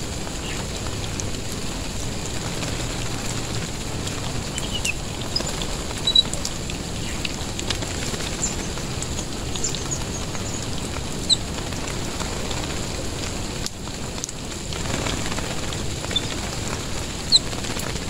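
Steady hiss of water spraying and falling on wet ground and leaves. Short, high bird chirps are scattered through it, with the sharpest about 6, 11 and 17 seconds in.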